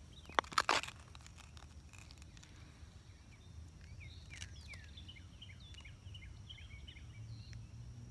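Outdoor ambience with two sharp clicks just under a second in, then small birds chirping in a quick run of short chirps through the middle and latter part, over a faint low steady hum.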